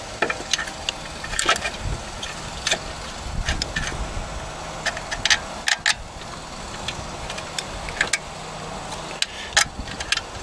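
Irregular metal clinks and taps of a bolt and hand tools against the alternator bracket while the alternator's bottom mounting bolt is being fitted, with a few low thuds.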